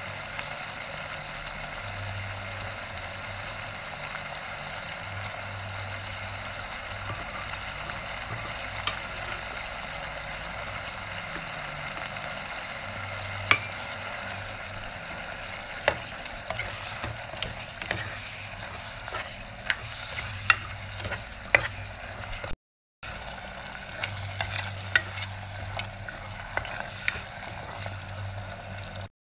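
Sauce sizzling and bubbling in a nonstick pot as it is stirred and fried. A wooden spoon scrapes and taps against the pot, with the clicks growing more frequent from about halfway through.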